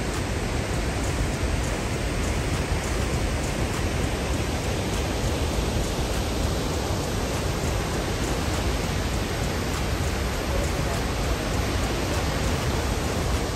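Victoria Falls: the steady, even rush of a huge waterfall, heard close up.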